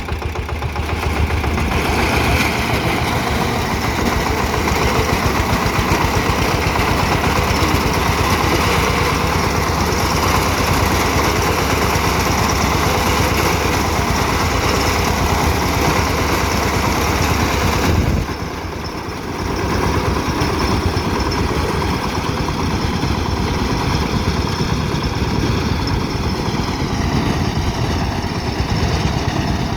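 Engine of a wheat-harvesting machine running steadily under load, with a brief dip in level about eighteen seconds in.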